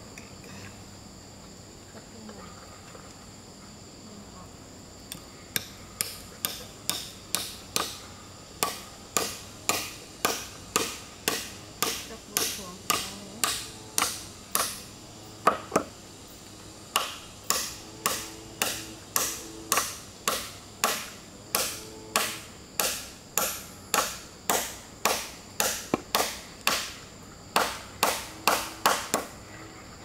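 A hand tool striking a wooden board over and over, about two blows a second, starting a few seconds in and pausing briefly about halfway. A steady high insect drone runs underneath.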